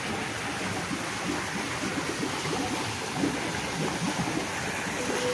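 Steady rushing and bubbling of water from the underwater jets of a shallow pool.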